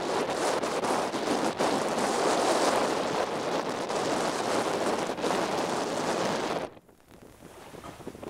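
Wind buffeting the microphone over the wash of the sea against a boat, a loud steady rushing that cuts off suddenly near the end to a much quieter hiss.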